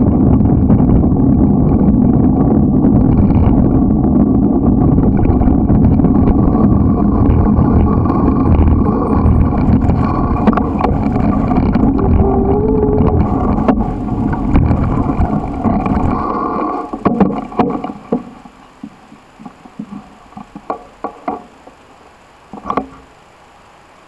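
Wind rushing over the microphone and bicycle tyres rolling on asphalt during a ride, a loud steady rumble that dies away about seventeen seconds in as the bike comes to a stop. Then come a series of scattered clicks and knocks.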